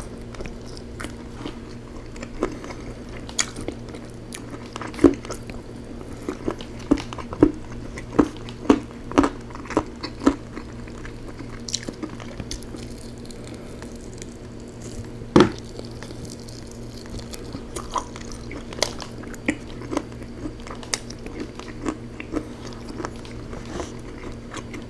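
Close-miked eating of rotisserie chicken: chewing and wet mouth smacks while gnawing meat off the bone, with a quick run of smacks a few seconds in and one loud smack about midway. A steady low hum runs underneath.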